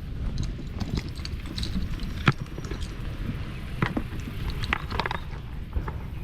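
Scattered clicks and light knocks of hand work with tools and parts, the sharpest knock about two seconds in, over a low steady rumble.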